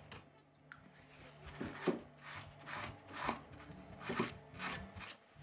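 Repeated rubbing strokes of a brush and a tissue against a painted model brick wall, wiping and blending off excess acrylic wash. There are about six short strokes, one every half second or so, from about a second and a half in.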